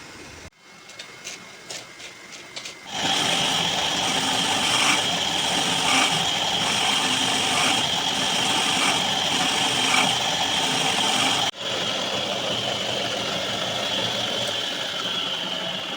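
A few sharp clicks, then a power tool starts and runs steadily with a high whine and a faint pulse about once a second. It cuts out abruptly about two thirds of the way in and carries on again.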